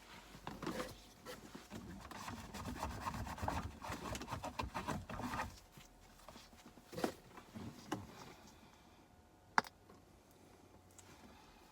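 Rapid scratchy handling noise for about five seconds, then two soft knocks and one sharp click near the end.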